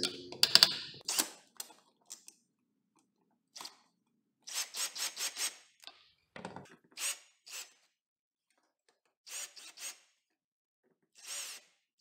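Ryobi cordless drill driving a screw through a plastic box extender into the electrical box. It goes in short rasping spurts, grouped in several runs with pauses between: a few near the start, a quick run of about five about halfway through, more a second later, and a last one near the end.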